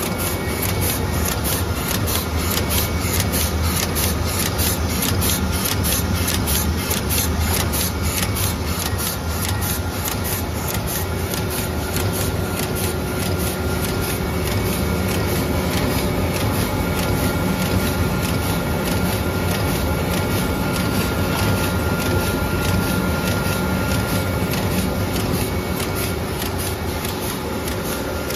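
Automatic pre-coating film laminating machine running, printed sheets feeding across its conveying table: a steady mechanical hum with fast, even ticking on top.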